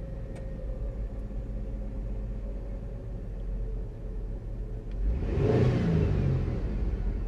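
Car engine idling, heard from inside the cabin, with one short rev about five seconds in that rises and falls back to idle.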